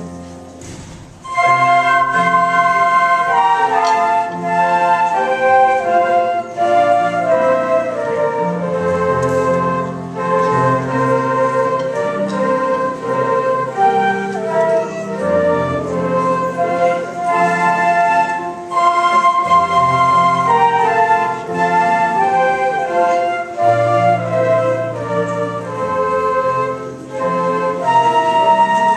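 A school concert band playing live, melody carried by sustained wind notes; the playing swells to full volume about a second in.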